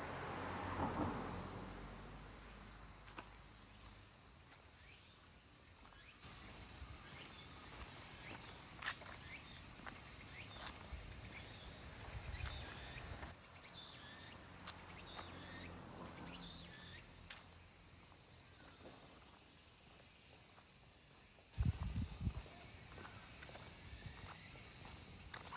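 A steady, high-pitched insect chorus that grows louder about six seconds in, drops back about halfway through and rises again near the end. Light walking footsteps and a few low thumps can be heard near the end.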